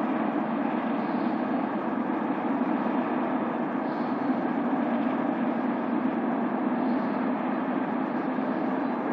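BNSF freight train rolling past, a steady rumble of wheels on rail.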